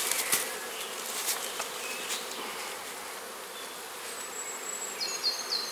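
Honeybees buzzing steadily around an open hive, with a few light clicks in the first half second and a short high chirping near the end.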